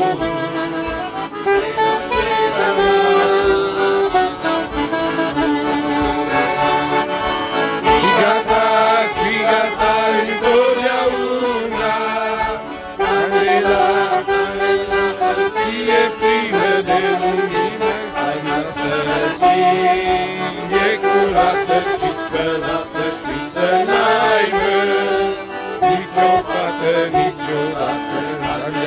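Two accordions and a saxophone playing a lively traditional-style Christian song of praise, with a man's voice singing the melody.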